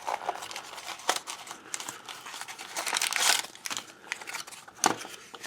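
Blind-bag toy packaging being crinkled and torn open by hand: irregular crackling and rustling, louder about three seconds in, with a sharp click near the end.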